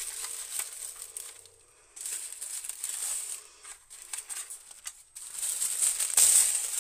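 Tissue paper rustling and crinkling as it is unwrapped and pushed aside, in irregular bursts with two short pauses, loudest near the end.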